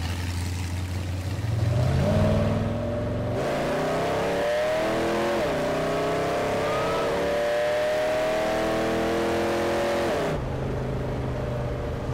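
Rat-rod Chevrolet pickup's engine accelerating: its pitch climbs, dips once about five seconds in, and climbs again, then drops back to a low steady run near the end.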